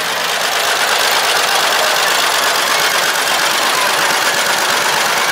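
Antique John Deere tractor's two-cylinder engine running steadily as the tractor drives past at parade pace.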